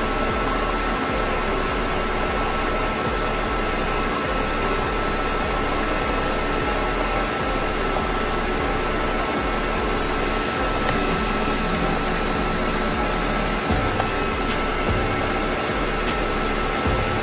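Countertop blender running at a steady speed, blending the soaked chilies; a constant motor whine rides over a loud, even rush with no change in speed.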